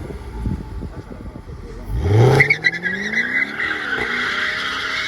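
Jaguar F-Type R's 5.0-litre supercharged V8 revs sharply about two seconds in, and the rear tyres break loose into a steady squeal as the car does a donut, the engine note climbing and holding under the wheelspin.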